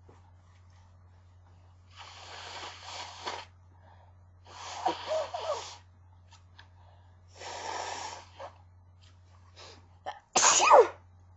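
A person with a cold in a sneezing fit: three long breathy sounds of about a second each, then one sharp, loud sneeze near the end.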